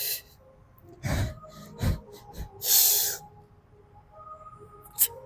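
A man breathing hard from exertion on a seated cable row, with several sharp gasping breaths in the first three seconds. A short click comes near the end.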